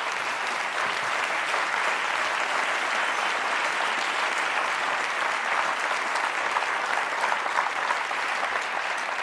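Studio audience applauding: many hands clapping at an even, sustained level.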